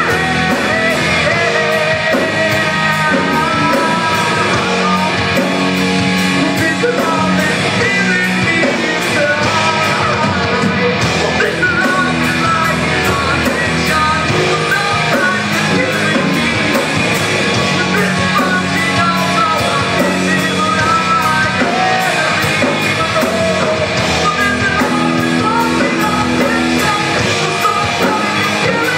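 Live rock band playing: a male singer over electric guitar, bass and drums, with a steady drumbeat throughout.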